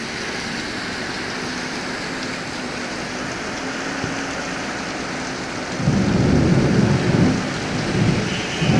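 Heavy rain pouring steadily on the street. About six seconds in, a loud, low rumble of thunder begins and rolls on.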